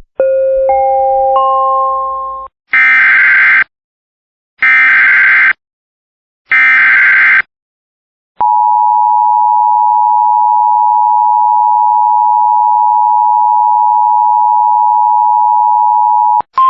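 Emergency Alert System header sequence: a short rising three-note chime, then three screeching SAME data bursts about two seconds apart. After that comes the steady attention tone, held for about eight seconds, which signals that a warning message follows.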